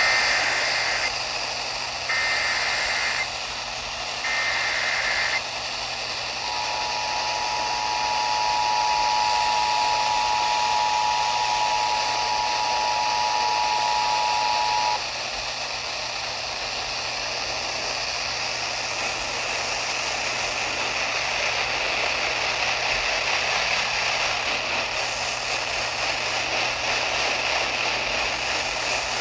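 Emergency Alert System alert on NOAA Weather Radio: three short bursts of the SAME digital header, then the two-tone attention signal held for about eight seconds, announcing a severe thunderstorm warning. After the tone cuts off, steady radio static hiss continues.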